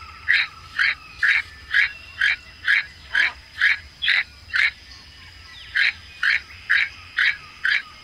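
Toco toucan calling: a run of short calls repeated about twice a second, pausing for about a second midway.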